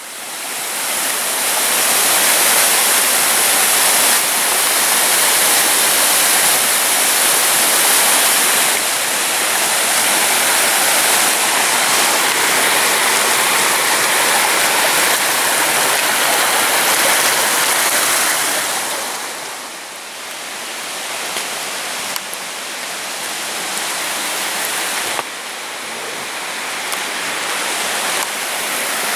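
Small mountain stream rushing and splashing over rocks in a little cascade, a loud steady hiss of water. It swells within the first couple of seconds and dips briefly past the middle before building again.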